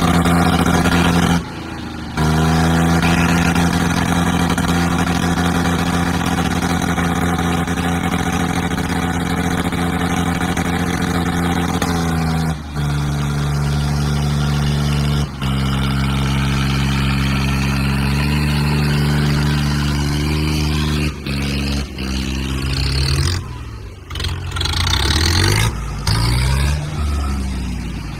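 Tractor diesel engines held at high throttle under heavy load: a John Deere 5050D and a Mahindra straining against each other on a chain in a tug-of-war. The engine note holds steady, drops in pitch about twelve seconds in, and near the end rises and falls as the throttle changes.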